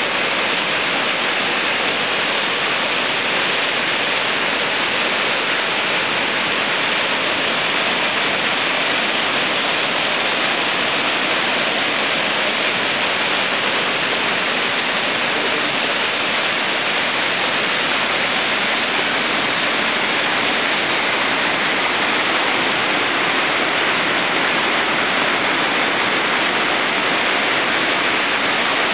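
Waterfall: falling water crashing into its pool in a loud, steady rush.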